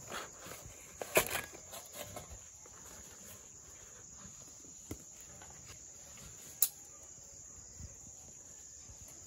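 A knife cuts through a rolled chapati on a banana leaf: a few crisp knocks and rustles in the first two seconds, the loudest about a second in. Insects chirr steadily throughout, and a single sharp click comes later on.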